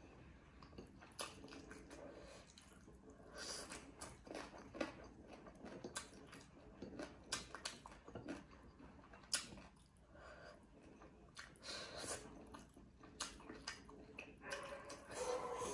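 Close-miked chewing of a mouthful of rice and buffalo meat, with many short mouth clicks scattered irregularly throughout.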